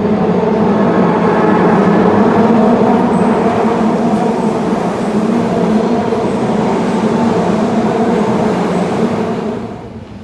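Midosuji Line subway train running past the platform: a loud rumble with a steady hum, falling away suddenly near the end.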